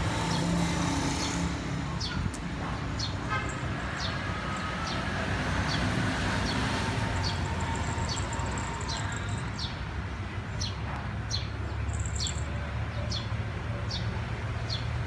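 Steady rumble of road traffic, with a small bird repeating short, high, downward chirps about once a second.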